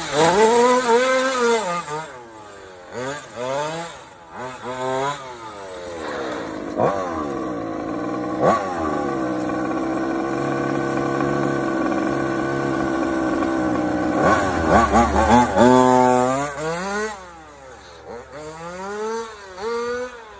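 Car engine revving sound effect, its pitch climbing and dropping over and over, then holding steadier through the middle before revving up and down again and fading near the end.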